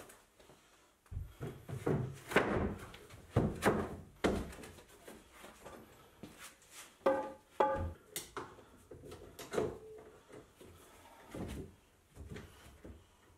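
Wooden knocks and thuds of an MDF sheet and lengths of 3x2 timber being handled and set in place, about a dozen irregular impacts. Two of the knocks, about seven seconds in, ring briefly.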